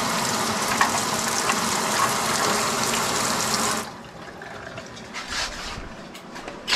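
Laundry-sink faucet running full, water pouring steadily into the basin, then shut off abruptly about four seconds in. Soft handling noises follow, with a short knock at the very end.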